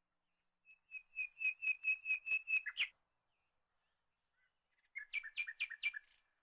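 A bird calling: a run of about nine quick, even, high notes that ends in a downward slur, then after a pause of about two seconds a shorter phrase of four notes.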